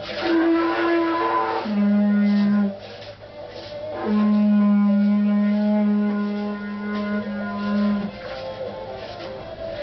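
A long wind horn blown in three held notes: a short higher note, then a lower note lasting about a second, then the same low note held for about four seconds. Guitar music plays quietly underneath.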